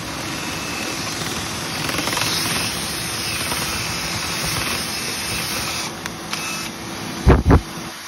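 Steady rushing noise with a motor hum from dryer vent cleaning equipment, as a spinning rod drives lint out of a house's exterior dryer vent. Two short, loud low thumps come close together near the end.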